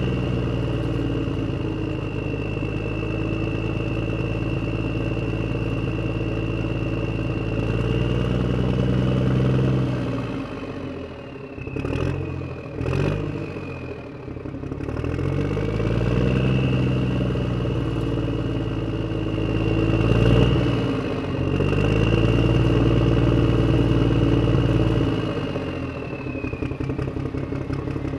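Tractor-style engine running steadily with a high whine above it. It slows and drops in pitch about ten seconds in, with two sharp clicks, then picks up again a few seconds later.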